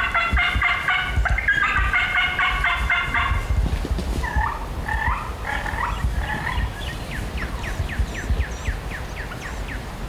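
Wild turkey gobbling, a loud rapid rattle lasting about three and a half seconds, followed by a run of shorter separate calls.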